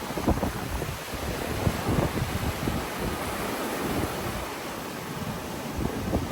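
Sea waves washing onto a beach, a steady rushing surf, with wind buffeting the microphone in irregular low gusts.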